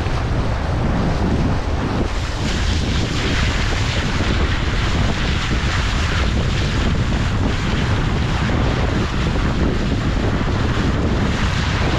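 Strong wind buffeting the microphone, a steady rumbling roar over the rush of water around a sailing boat under way.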